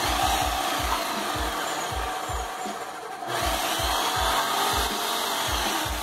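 Graco Magnum LTS 15 airless paint sprayer running under load, its piston pump knocking in a regular low beat, while the open gun with no tip sprays the flushing water into a bucket with a steady hiss. The hiss gets louder about three seconds in as the pressure is turned up.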